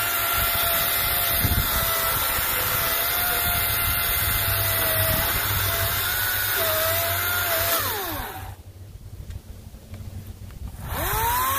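EGO 56-volt brushless battery chainsaw running with a steady electric whine as its chain cuts through a log. A little under eight seconds in, the motor winds down with a falling whine and stops. Near the end it spins up again with a rising whine.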